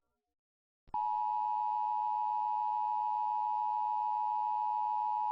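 Electronic alert tone of a homemade Emergency Alert System broadcast: about a second of silence, then a steady single-pitch tone near 1 kHz starts abruptly and holds without a break.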